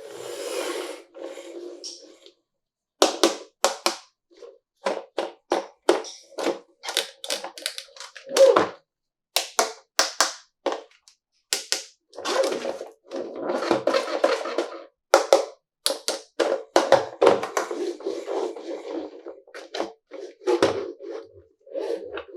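Fingers tapping and handling a plastic toy car and its packaging: irregular sharp taps and knocks, several to a second at times, with a few longer stretches of rustling and rubbing.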